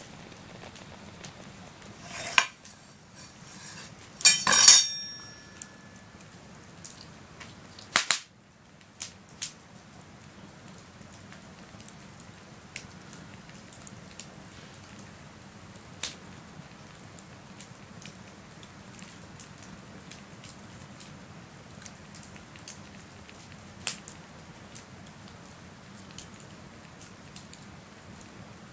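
A few sharp clatters in the first several seconds, like things being handled, then a campfire's steady crackle with scattered pops.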